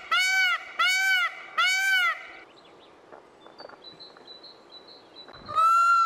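Indian peafowl calling: three loud honking calls in quick succession, each rising and falling in pitch, then a pause of about three seconds and another call near the end.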